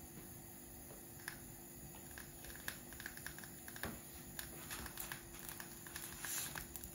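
Faint ticking and crackling from a thin crêpe cooking in a hot nonstick frying pan, the small ticks getting busier from about two seconds in. Near the end, fingers lift the crêpe's edge to check it before turning.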